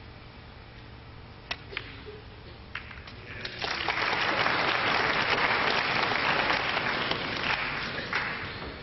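A few sharp snooker-ball clicks, the cue striking the cue ball and balls hitting each other, about one and a half to three seconds in. Then audience applause starts about three and a half seconds in, the loudest sound, and dies away near the end.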